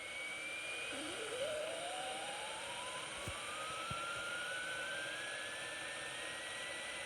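WR400 radio tuned to 87.5 giving a steady hiss of static with a thin squealing whistle that slides slowly upward in pitch. One whistle fades out about a second in, and another starts low and climbs steadily for the rest of the time, with two faint clicks near the middle.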